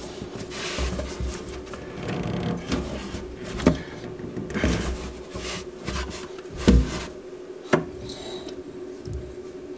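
Corrugated plastic sink drain hose being handled and fitted by hand: the plastic rubs and rustles, with several sharp knocks and clicks, the loudest two-thirds of the way in. A faint steady hum runs underneath.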